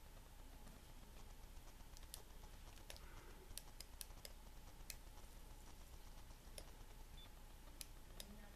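Near silence with a faint steady hum and about a dozen faint, sharp clicks scattered at irregular intervals.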